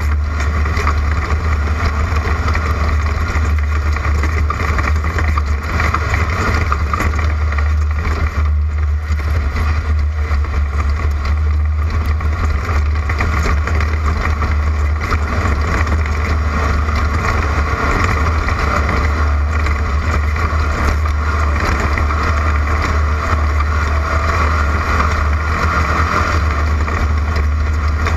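Class 11 Volkswagen Beetle off-road race car running at speed, its air-cooled flat-four engine a steady low drone under constant rough road and wind noise.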